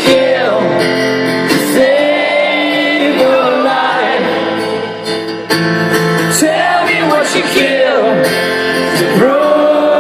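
Acoustic guitar chords under a voice singing long, wavering held notes without clear words.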